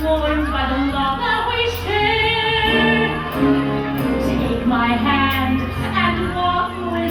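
Live stage show music: a woman singing a Christmas song over a band backing track, her voice carried through the show's loudspeakers.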